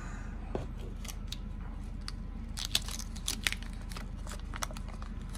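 Cardboard baseball cards being handled and shuffled by hand: light rustling and small clicks and snaps, with a cluster of sharper ticks about three seconds in.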